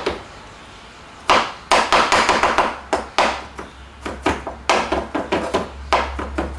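Kitchen knife chopping crushed garlic on a cutting board: quick runs of knocks, starting about a second in and picking up again past the middle.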